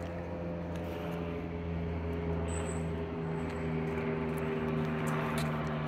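A steady engine drone: a low hum with several tones over a broad rumble that grows slightly louder toward the end.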